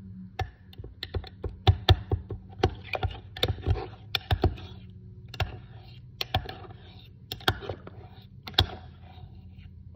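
Metal spoon clinking against the inside of a ceramic mug while stirring a drink, in quick irregular clinks that come thickest in the first half and thin out later.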